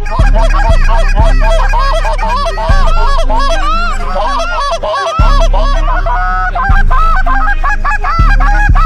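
A flock of Canada geese honking continuously, many calls overlapping. Under it runs a music track with a deep bass and a heavy kick about every one to one and a half seconds.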